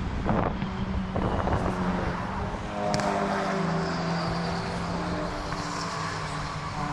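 Race car engines running, with the engine note sliding slowly lower from about three seconds in.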